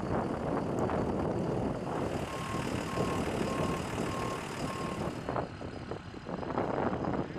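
Aircraft tow tractor running, with a reversing alarm giving five short, evenly spaced beeps, a little under a second apart, in the middle.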